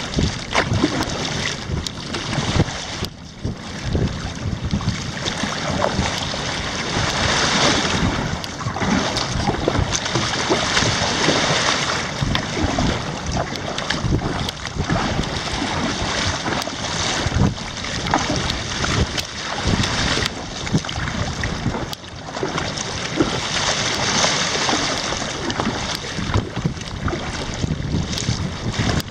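Wind buffeting the microphone over water splashing around a kayak being paddled, a steady rush broken by many short splashes.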